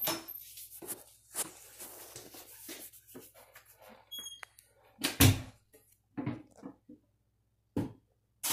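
Irregular rustling and handling noises, with a brief high squeak just after four seconds in and a sharp thud about five seconds in, the loudest sound; a second, smaller thud comes near the end.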